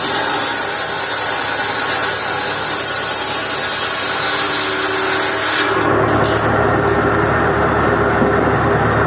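PTO-driven saw bench blade cutting through firewood, a hissing rip lasting about six seconds, over the running four-cylinder engine of a 1958 Massey Ferguson 35 tractor. When the cut ends the engine and spinning blade run on steadily, with a few light knocks.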